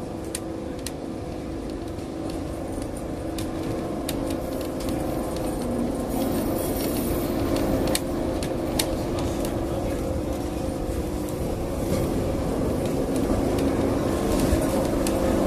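Lisbon street tram running along its rails, heard from aboard: a steady rumbling hum with scattered sharp clicks and rattles, growing gradually louder.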